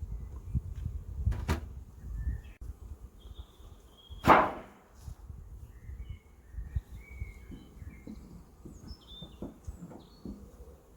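Birds chirping and whistling over a low rumbling outdoor background, with a sharp click about a second and a half in and a louder short knock about four seconds in.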